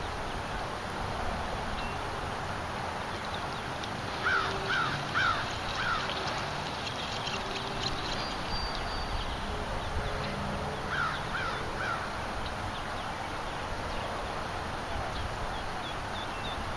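A bird calling in two short series: four quick calls about a quarter of the way in, then three more about two-thirds through, over a steady background hiss.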